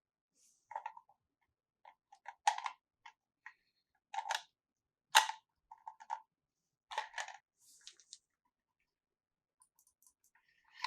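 Small plastic toy pieces being handled: irregular light clicks and taps, one or two a second, with silence between them and the sharpest click a little after halfway.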